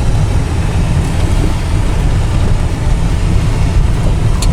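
Steady road and engine noise of a moving Honda Odyssey minivan, a heavy low rumble, with a short click near the end.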